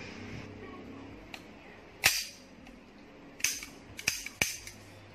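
Sharp metallic snaps and clicks from the action of an AKSA CZ75 Compact blank pistol being worked. A faint click comes first, then the loudest snap about two seconds in with a short ring. Another snap follows a second and a half later, then three quick clicks in under half a second.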